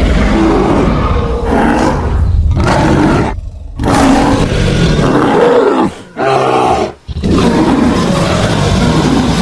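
Synthetic monster sound effect built from layered dinosaur, alligator and bear sounds: a run of loud, rough roars and growls. It breaks off briefly about three and a half seconds in and twice more around six and seven seconds, and one call falls in pitch just before the second break.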